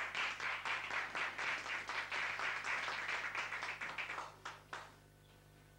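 A small group clapping, a dense patter of applause that dies away about four seconds in with a couple of last lone claps.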